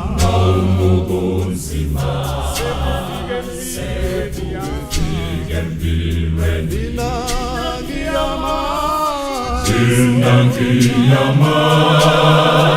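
Background music: voices singing with vibrato over a sustained bass line that changes note every second or two.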